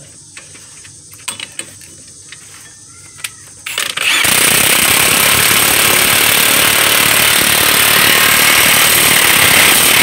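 A Milwaukee impact wrench hammers continuously for about six seconds, starting about four seconds in, tightening the mounting bolts of a new front wheel hub. Before it there are only a few small clicks of parts being handled.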